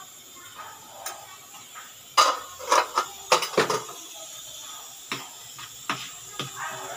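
Kitchen utensil clatter: a metal spoon knocking against a steel spice box, a quick run of loud clinks and knocks about two seconds in, then a few lighter taps of a spoon against a plate as the filling is stirred.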